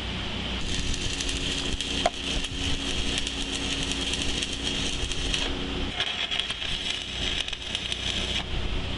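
Electric arc welding making tack welds on a steel seal housing: two runs of crackling arc, the first about five seconds long and the second from about six to eight and a half seconds in. A sharp click comes about two seconds in, and a steady low hum runs under the first run until about six seconds in.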